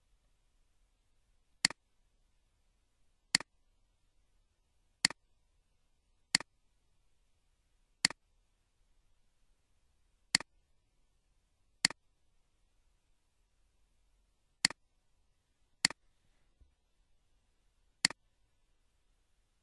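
Computer mouse button clicking about ten times, single clicks one to three seconds apart, as toolbar formatting is applied in a spreadsheet.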